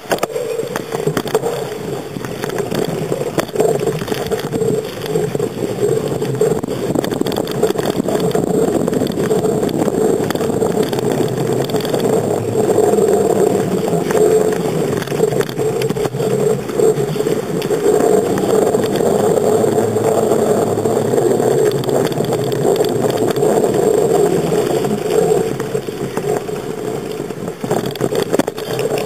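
Bicycle ride heard from a handlebar-mounted camera: a steady rushing rumble of tyres on the road, frame vibration and wind on the microphone, with small rattles and bumps.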